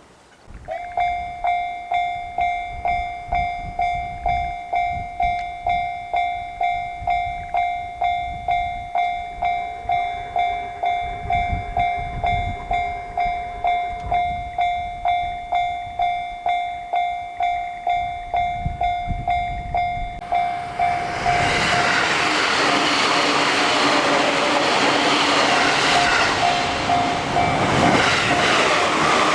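Japanese level-crossing warning bell starting up: an electronic 'kan-kan' ding repeating about twice a second. About twenty seconds in, a JR Sobu Line train passes over the crossing, its running noise covering the bell.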